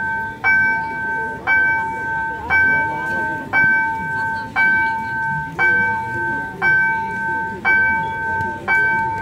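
Railroad level crossing warning bell ringing with the signals active: a sharp strike about once a second, each ring sounding on until the next one.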